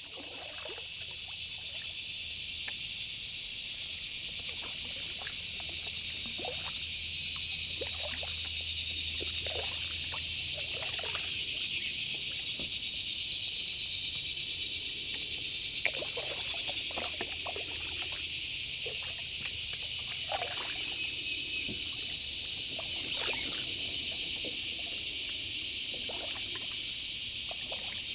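Creek water trickling and dripping in small irregular splashes, against a steady high-pitched hiss that carries on throughout.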